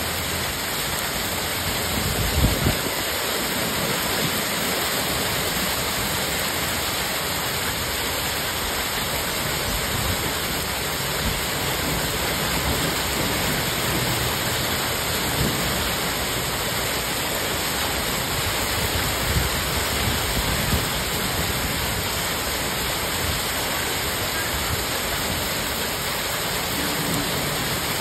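Hail pelting down steadily, a dense even hiss of stones striking leaves and the ground. There is a brief low thump about two and a half seconds in.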